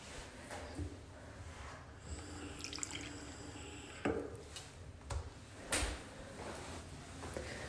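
Push-button sink taps being pressed and water running briefly into the basin, followed by a few sharp clicks about four to six seconds in.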